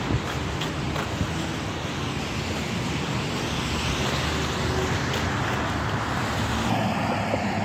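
Road traffic on a wet road: tyre hiss swelling and fading around the middle as a car goes by, over a steady low rumble, with a jogger's footfalls in the first second or so.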